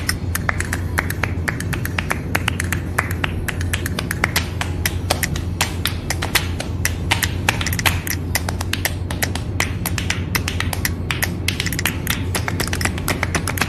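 Background music with rapid, irregular tapping clicks, several a second, over a steady low hum.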